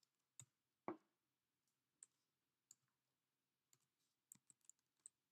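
Faint, sparse keystrokes on a computer keyboard: single clicks spaced out, with a quick run of three about three-quarters of the way through.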